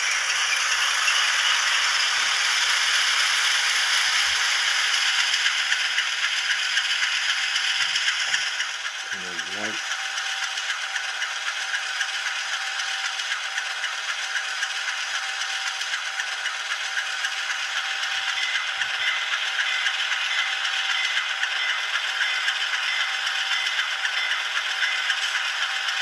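Diesel engine sound of an N-scale U25B model locomotive played by its ESU LokSound 5 Micro decoder through a tiny speaker, giving a thin, rattly engine sound. It runs at a slightly higher level for the first nine seconds or so, then drops a little and settles into a steady idle.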